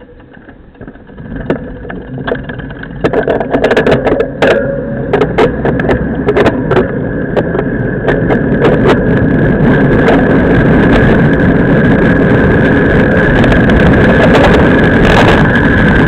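Wind noise buffeting the microphone of a camera mounted on a road bicycle, over tyre and road rumble on asphalt. It grows much louder through the first half and then holds steady, with a run of sharp rattling clicks in between.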